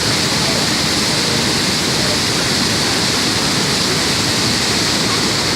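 Waterfall's water crashing down as a steady, loud rush.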